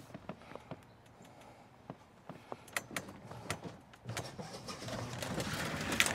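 Club Car golf cart climbing aluminum folding loading ramps into a pickup bed: scattered clicks and clanks of the tires on the aluminum ramps. A low motor hum builds over the last two seconds, and a loud knock comes near the end as the front wheels reach the bed.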